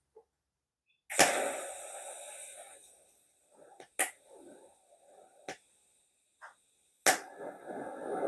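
TIG welder arc on steel strap: a sudden crackling strike about a second in with a hiss that fades away, a few sharp clicks, then a second strike and hiss near the end, as pieces are tacked into position at 80 amps.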